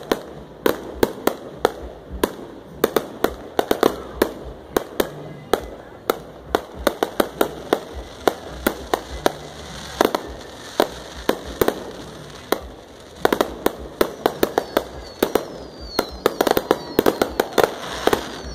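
Aerial fireworks display: shells bursting in a rapid, uneven string of sharp bangs and crackles, thickest about sixteen seconds in, with a few falling whistles near the end.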